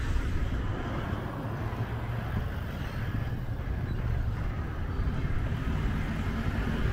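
Outdoor ambience: a steady low rumble with no distinct events.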